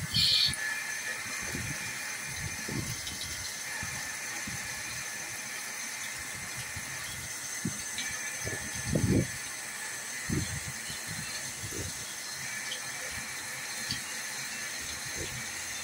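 CNC lathe cutting under flood coolant: the steady hiss and splash of coolant on the spinning bar as a small drill feeds into its end. Short low knocks from the machine come now and then, the loudest about nine seconds in, with a brief high squeak right at the start.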